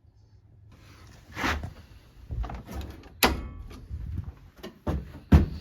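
A series of separate knocks and clunks, about eight of them at irregular intervals, starting about a second in; the loudest is near the end.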